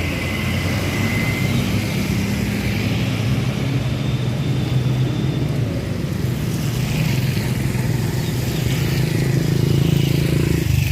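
Road traffic passing: motorcycle and car engines running, with a steady hiss of tyres on a wet road.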